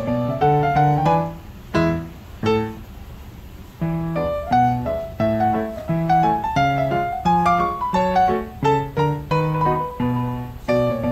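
Background piano music: a light melody of struck notes over a low bass line, softer for a moment about two to four seconds in.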